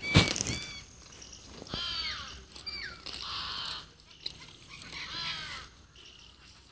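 A loud, sudden rustle or knock at the start, then several short, harsh animal cries spaced a second or more apart.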